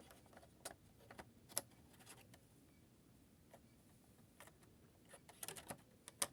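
Scattered faint clicks and taps of a laptop memory module being handled and pushed into its slot, with a quick cluster of clicks near the end.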